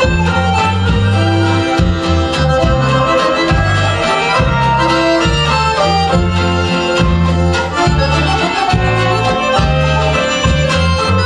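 Polish courtyard band (kapela podwórkowa) playing an instrumental passage led by accordion, over a bass line that steps between notes on a steady beat.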